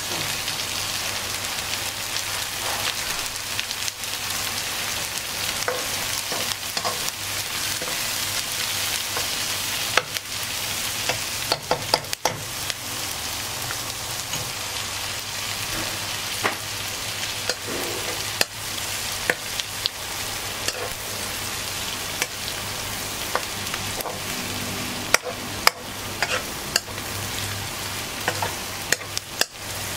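Sliced shallots sizzling steadily as they fry in a non-stick wok. Sharp clicks and scrapes of a metal spatula stirring them come more often from about a third of the way in.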